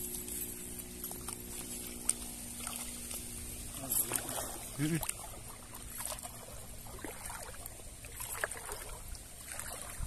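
A wet cast net is dragged in over mud and shallow water, with scattered rustles and splashes from the net and the fisherman's feet, loudest around four to five seconds in. A steady low hum runs underneath and fades out about seven seconds in.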